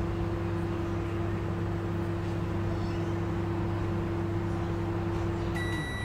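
Kenwood microwave oven running on combined grill and convection mode, its fan and turntable motor humming steadily. Near the end the hum cuts off as the timer reaches zero and the end-of-cycle beep starts.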